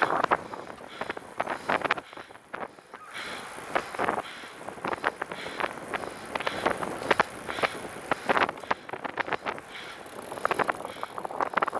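Riding noise from a moving recumbent trike: a dense, irregular run of rattles and crackles over a steady rush of wind on the microphone.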